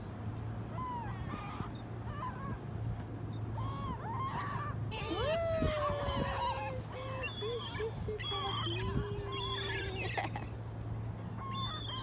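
A flock of gulls calling: many overlapping cries, among them a few long drawn-out calls that slide slowly down in pitch.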